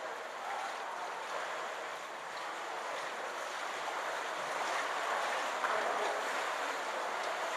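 Steady ambience of an indoor swimming pool hall, with water splashing and lapping as kayak paddles dip and boats move through the pool.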